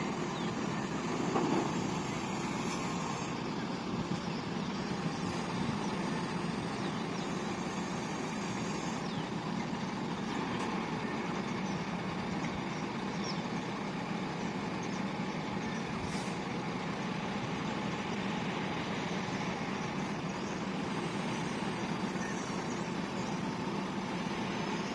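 Heavy truck engine running steadily, driving the truck-mounted hydraulic knuckle-boom crane as it lifts a portable cabin.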